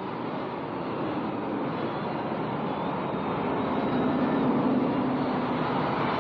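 Steady rush of expressway traffic noise blended with faint drawn-out droning tones, growing slowly louder, with a low hum coming in more strongly about four seconds in.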